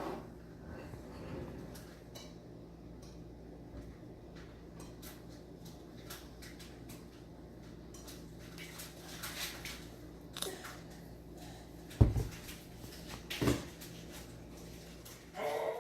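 Kitchen dishes and utensils being handled: scattered light clicks and clinks, with two louder knocks in the last few seconds.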